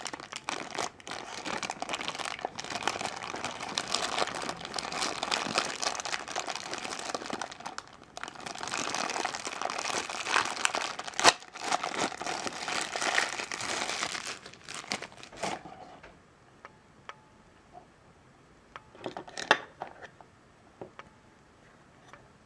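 A glossy black plastic blind-box bag crinkling and tearing as it is pulled open by hand, for about the first sixteen seconds. After that it goes quieter, with a few light clicks and taps as the hard plastic figure base is handled.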